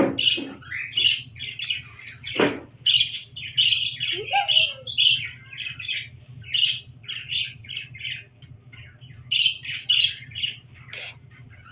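Small pet parrots, budgies with a lovebird and cockatiel, chirping and chattering in quick, short, high calls, a few a second, with a brief lull in the middle.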